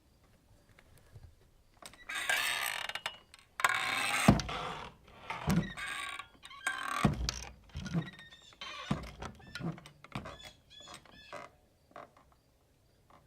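Saloon swing doors flapping back and forth: squealing, creaking hinges and several heavy wooden thuds as the doors knock past. The swings die down toward the end into short, sparse squeaks.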